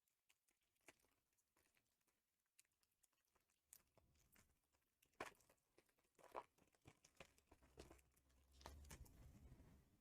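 Faint tearing and crinkling of a foil booster-pack wrapper being opened by hand, with scattered small clicks and rustles and a longer crinkling rustle near the end.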